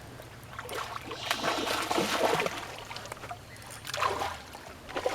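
A hooked carp splashing at the water's surface as it is landed, in irregular bursts, the longest in the first half.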